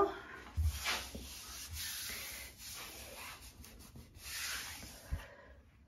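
A hand rubbing and sweeping across wood-effect adhesive vinyl film on a kitchen cabinet, a dry swishing in several strokes, with a light knock about half a second in and another near the end.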